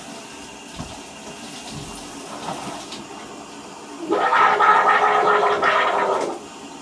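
Shower water running steadily. About four seconds in, a child makes a loud, harsh, strained vocal noise, held at one pitch for a couple of seconds and then cut off.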